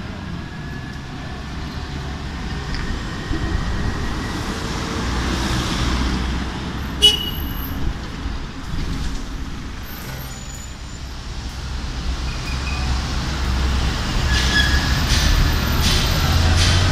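Street traffic noise with vehicles running past. Toward the end an Alstom Citadis 302 tram approaches and its running noise grows louder. A single short, sharp high click about seven seconds in.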